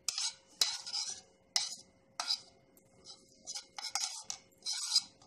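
A spoon scraping and tapping powdered spices off a ceramic plate into a steel mixer-grinder jar: an irregular series of short clinks and scrapes.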